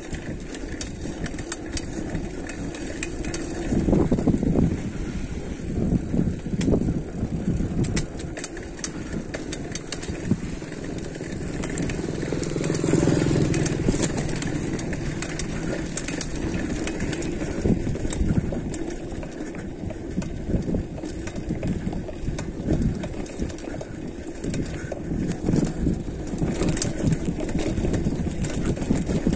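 Mountain bike rolling down a dirt trail: tyres on loose ground with a constant clatter of rattles and clicks from the bike, swelling louder a few times.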